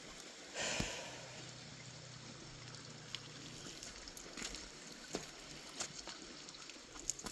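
Scattered footsteps and scrapes on rock over a faint trickle of running water, with a short rush of noise about a second in.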